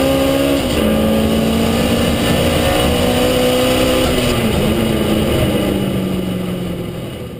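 Turbocharged 1600cc 16-valve four-cylinder engine of a Peugeot 106 GTi Turbo drag car, heard from inside the stripped cabin, running at fairly steady revs. Its pitch drops slightly about a second in and again about halfway through, and the sound fades out near the end.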